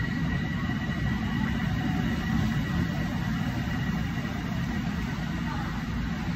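Steady low mechanical rumble with a faint constant high whine, the engine-like background hum of a commuter rail station.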